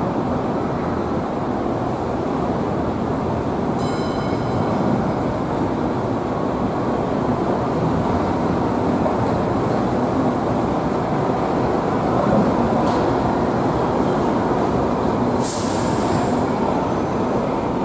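Hong Kong MTR Light Rail car running past on a curved track, a steady rolling and motor noise that swells as it goes by. There is a brief high ringing about four seconds in and a short high hiss near the end.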